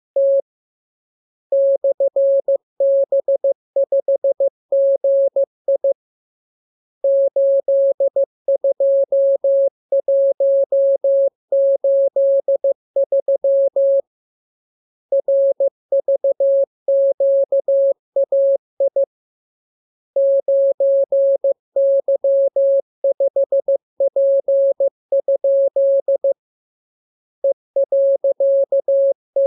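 Morse code sent as a single steady mid-pitched tone, keyed on and off in quick dots and dashes for code-practice copying. The characters come in runs a few seconds long with pauses of about a second between them.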